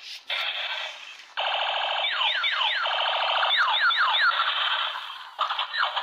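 A transforming robot toy car's built-in speaker playing electronic transformation sound effects with no bass: short buzzy bursts, then from about a second and a half in a dense run of repeated falling zaps over a steady electronic tone.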